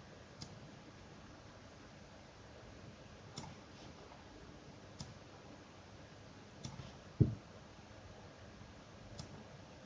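Scattered computer mouse clicks, about half a dozen spaced a second or more apart, over a quiet room, with one louder, duller thump about seven seconds in.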